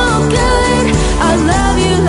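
Music: a pop song playing loudly, with a melodic line over a steady low beat.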